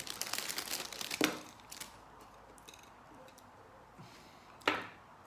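Clear plastic bag crinkling as it is handled, for about the first second, ending with a sharp crackle. After a quieter stretch of small handling noises comes a single sharp click near the end.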